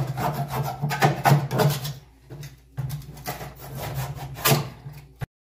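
Old paint being scraped back by hand on a wooden door: irregular rubbing strokes against the wood, with a lull about two seconds in, over a steady low hum. The sound cuts off abruptly near the end.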